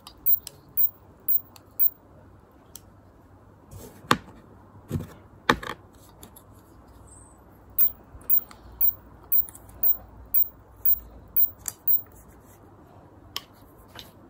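Sharp clicks and snaps of a plastic microphone clip being handled while it is unboxed. A run of evenly spaced high ticks comes about twice a second at the start and again in the second half, with a few louder single clicks in between.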